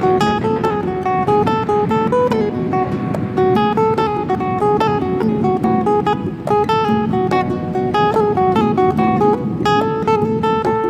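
Background music: acoustic guitar playing a quick run of picked notes.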